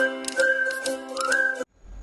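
Background music with a held melody over rhythmic struck notes, cutting off abruptly about a second and a half in. A low, steady rumble follows.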